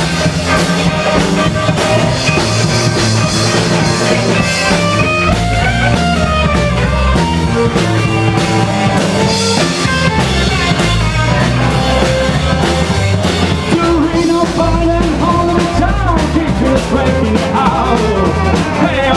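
Live rockabilly band playing loudly, with a drum kit keeping a steady driving beat under electric bass and guitar.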